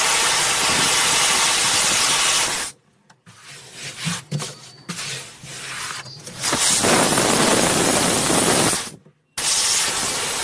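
Gas hissing out of a deep freezer's internal cooling pipe as it is flushed, spluttering against a hand held over the pipe's end and carrying oil out of the choked line. The hiss stops suddenly about 2.7 s in, gives way to quieter, uneven spurts, comes back strongly at about 7 s for a couple of seconds, breaks off briefly and comes back near the end.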